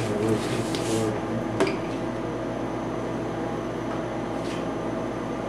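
Steady hum of an electric box fan running, with one sharp click about a second and a half in.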